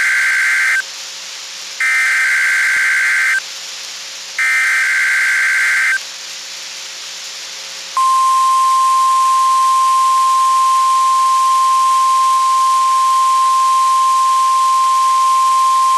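NOAA Weather Radio Required Weekly Test tones over a hiss of radio static. First come the end of one short screeching burst of SAME digital header data and two more like it, each about a second and a half long. After a two-second pause, the steady 1050 Hz tone-alert (warning alarm) tone starts and holds.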